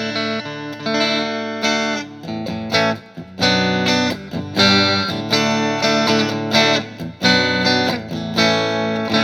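Electric guitar strumming chords on a Stratocaster-style bridge pickup through a Vox VT20X modelling amp on a clean setting, with sharp repeated attacks and a brief break about three seconds in.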